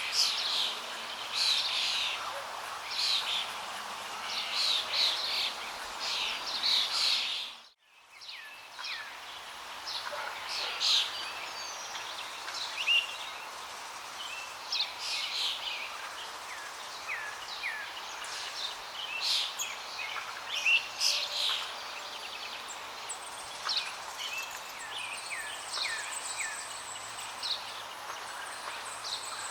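Chorus of many small songbirds chirping, short quick notes overlapping continuously. The sound cuts out abruptly for a moment about eight seconds in, then the chirping resumes.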